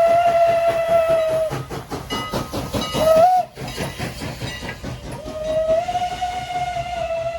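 Pennsylvania Railroad "banshee" steam whistle on ex-CN 89, a 1910 2-6-0 mogul steam locomotive, blowing in a chord of several tones. A long blast ends about a second and a half in, a short toot sounds about three seconds in, and another long blast starts about five seconds in. A rapid, even rhythmic beat from the moving train runs underneath.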